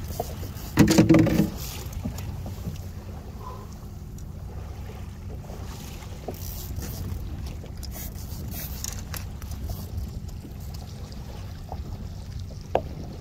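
Small fishing boat's motor running low and steady under wind and water noise. A short, loud buzz with a steady pitch breaks in about a second in.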